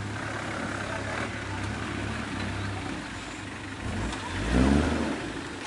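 Off-road 4x4 truck engine running steadily, then revving up hard about four seconds in, its pitch rising briefly before easing off.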